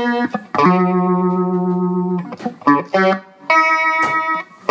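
Instrumental music: an electric guitar through effects plays single notes. Two long notes are held for about a second and a half and one second, with a few quick short notes between them.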